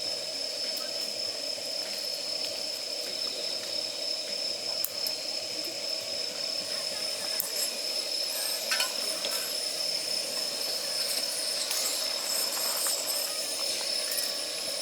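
Gas burner held on damp firewood, hissing steadily, while the wet wood sizzles and crackles with sharp pops, the crackling getting busier from about halfway through.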